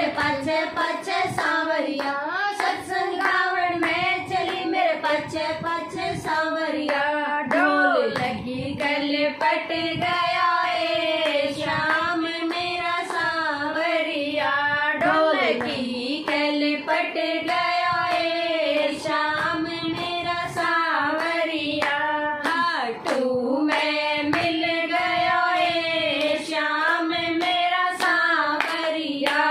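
Several women singing a Hindi devotional bhajan together, with no instruments, clapping their hands in time throughout.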